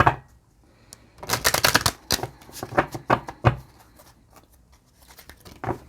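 Oracle cards being shuffled and handled: a sharp snap at the start, a dense flurry of card snaps about a second in, then a few separate slaps of cards.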